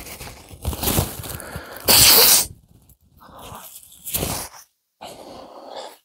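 A man blowing his nose hard into a paper tissue in several blows. The loudest comes about two seconds in and a shorter one follows near four seconds. His nose is running from the heat of a strong chili extract.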